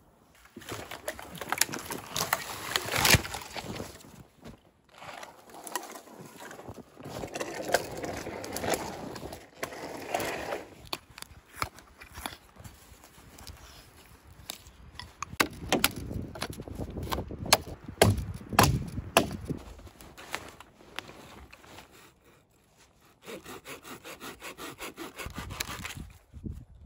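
Irregular knocks and scrapes of wood being handled, then, near the end, a folding saw cutting through a small dead log in rapid back-and-forth strokes, about three a second, until the log parts.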